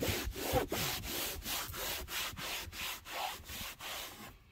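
A cloth rag wiping a car dashboard in quick back-and-forth strokes, about four to five rubs a second, stopping about four seconds in.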